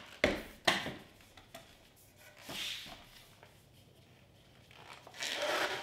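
Leofoto LN-404C carbon fiber tripod legs being collapsed: two sharp knocks of the leg tubes in the first second, then lighter ticks and rubbing as the twist locks are turned and the sections slide together, with a longer rubbing swell near the end.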